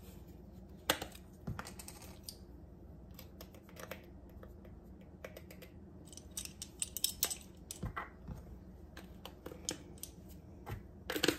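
Light, irregular plastic clicks and taps from a ring of plastic measuring spoons and a spice jar being handled while garlic powder is measured out, with a cluster of quick clicks about halfway through.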